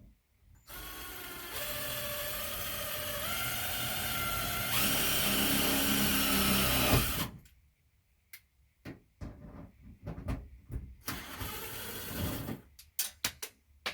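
Power drill running under load, drilling or driving a screw into metal, its pitch stepping up a few times as the trigger is pressed harder, then stopping. After it come several clicks and knocks and a second, shorter run of the drill.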